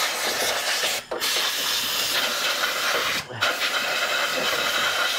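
Compressed-air blow gun hissing in three long blasts with short breaks about one and three seconds in, blowing dirt out of a lawn mower's gearbox pivot.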